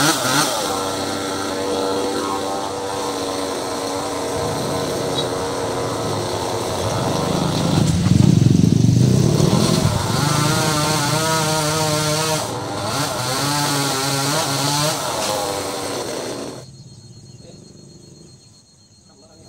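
Chainsaw's two-stroke engine running hard while cutting a branch. It gets louder and heavier about halfway through, its note wavers under load, and it drops back sharply near the end.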